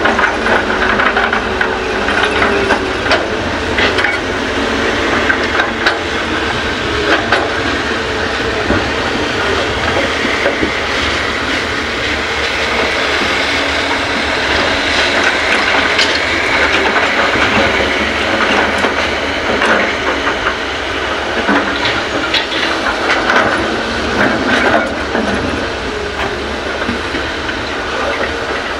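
Hyundai excavator loading fill soil into a dump truck: heavy diesel machinery running steadily with a hiss, and irregular knocks and clanks.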